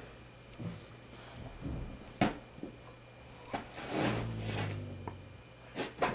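Two dogs play-wrestling on a dog bed: rustling scuffles with two sharp knocks, one about two seconds in and one near the end, and a low growl lasting about a second from about four seconds in.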